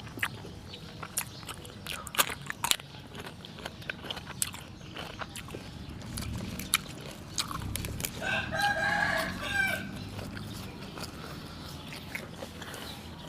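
A rooster crows once, a pitched call about two seconds long just past the middle. Sharp clicks and taps of eating, chewing and utensils come and go throughout.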